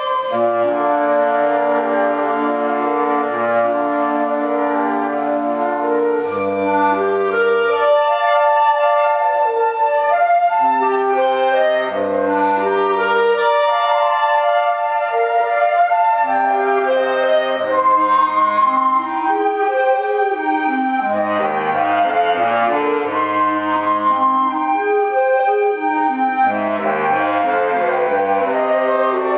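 Woodwind ensemble of flutes and clarinets, with a bass clarinet carrying the low line, playing a piece in held, overlapping notes under a conductor.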